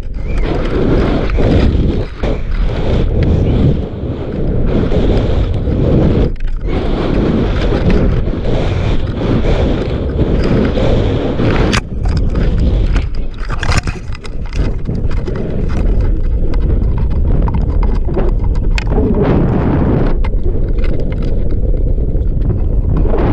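Wind rushing over the microphone of a model rocket's onboard camera as the rocket falls, with scattered knocks and rattles from the airframe.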